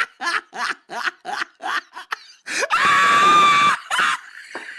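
Laughter in short rhythmic bursts, then a loud scream held for about a second.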